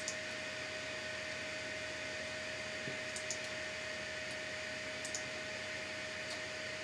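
Computer mouse clicking on the printer's control page: a handful of short clicks, some in quick pairs, over a steady hiss with a faint steady tone.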